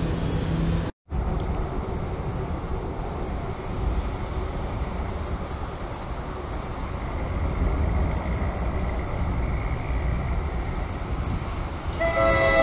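Steady low rumble of a commuter train approaching on wet tracks. Near the end its multi-tone air horn begins to sound. Just before the rumble, a locomotive hums at the platform for about a second and then cuts off abruptly.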